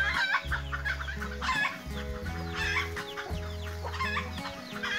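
Chickens clucking, with background music of held low notes underneath.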